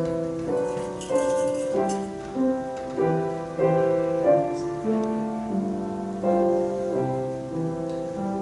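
Piano playing a slow piece in full chords, each chord struck and left to ring before the next.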